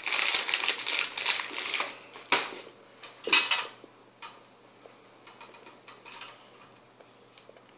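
Small plastic bag of wire nuts crinkling and rattling as they are handled, with a couple of sharp plastic clicks a little after two and three seconds in, then faint ticks of wires being fitted together by hand.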